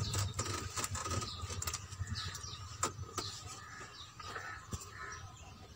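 Gram-flour batter being mixed by hand with a small whisk in a glass bowl: faint, irregular clicks and taps of the whisk against the glass.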